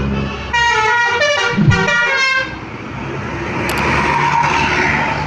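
Telolet multi-tone bus horn playing a quick run of notes for about two seconds, then a rushing noise that swells and fades.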